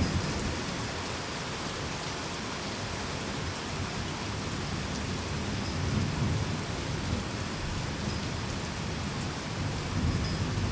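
Heavy rain falling steadily in a thunderstorm. Low rolling thunder rumbles under it, swelling about halfway through and again near the end.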